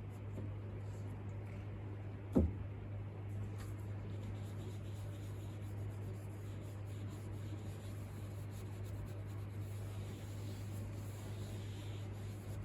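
French-polishing pad rubbing shellac onto a wooden piano soundboard, a soft scratchy rubbing over a steady low hum, with a single sharp knock about two seconds in.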